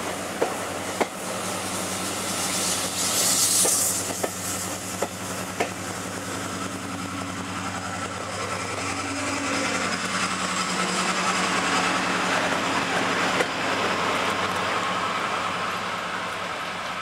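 A diesel-hauled passenger train running past, with the coach wheels clicking sharply over rail joints and a steady diesel engine drone beneath. A brief hiss comes about three seconds in. From about ten seconds on, the sound swells as the Class 55 Deltic locomotive, with its twin Napier Deltic two-stroke engines, goes by.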